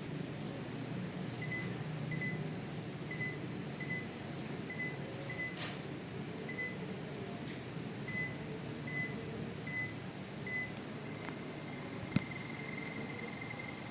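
Panasonic mini split indoor unit giving about a dozen short single-pitch beeps, roughly one every 0.7 s, as it acknowledges remote-control button presses while its settings are changed. Its fan hums steadily underneath. Near the end a continuous high tone comes in and there is one sharp click.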